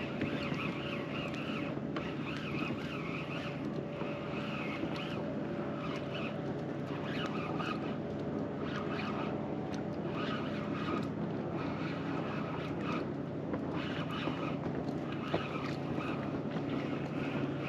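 Boat motor humming steadily, holding an even pitch, with water and rustling noise over it.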